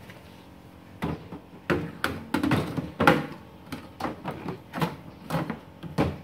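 A small welding machine and its cables knocking and clunking against the steel bottom bin of a tool box trolley as they are pushed in and shifted around. About a dozen sharp bumps follow one another from about a second in.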